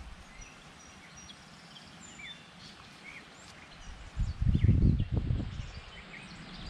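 Small birds chirping and calling, many short rising and falling chirps. About four seconds in, a louder low rumble lasts for about a second and a half.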